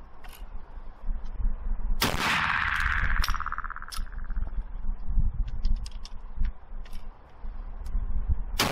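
Two shots from a Model 1867/77 Werndl single-shot rifle firing black-powder 11.15x58R cartridges, about six and a half seconds apart, the second at the very end. Each shot is followed by about two seconds of ringing echo. Between them come small metallic clicks of the breech being worked by hand: opened, the spent case pulled out, a fresh round loaded.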